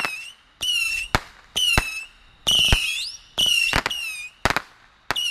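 Whistling fireworks going off one after another, about one a second: each a shrill whistle lasting about half a second, along with sharp cracks.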